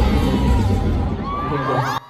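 Live band music with heavy bass winding down at the end of a song, as the crowd screams and cheers in rising and falling shouts over the last half second. The sound drops off abruptly at the end.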